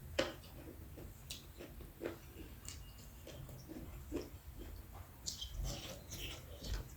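Close-up eating sounds of someone eating buffalo-meat curry with rice: wet chewing and lip smacks in irregular short clicks, the sharpest about a quarter second in.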